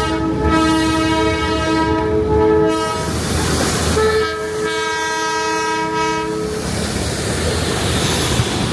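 Darjeeling Himalayan Railway toy train's horn sounding two long blasts of about two and a half seconds each, several tones at once, over the rumble of the train.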